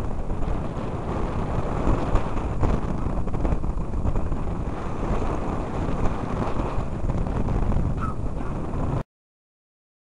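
Strong wind rushing over a glider-mounted camera's microphone in flight: a loud, low, continuous rush that cuts off suddenly near the end.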